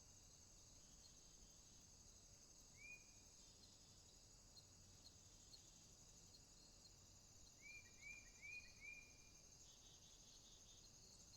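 Faint warm-weather outdoor ambience: insects trill steadily and high-pitched throughout. A bird gives a single short chirp about three seconds in, then a quick run of four chirps about eight seconds in.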